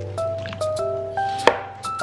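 Instrumental background music: a melody of single notes stepping in pitch, with a sharp knock about one and a half seconds in.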